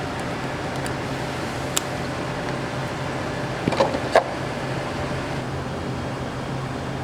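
Steady low machine hum, with one sharp click a little under two seconds in and a short burst of clinks and knocks about four seconds in.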